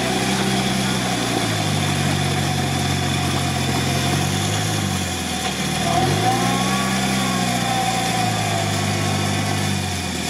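Lifted UAZ 4x4's engine labouring in a deep mud pit, its revs swinging up and down twice as the driver works the throttle, with the wheels churning muddy water. A thin whine rises and falls along with the revs about six seconds in.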